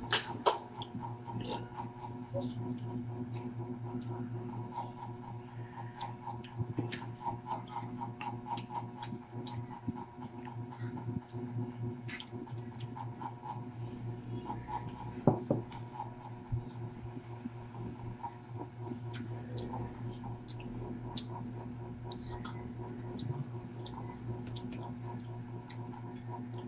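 Eating sounds close to the microphone: fried chicken torn apart by hand and chewed, with many small crunches and clicks, over a steady hum. Two sharper knocks stand out, about half a second in and about fifteen seconds in.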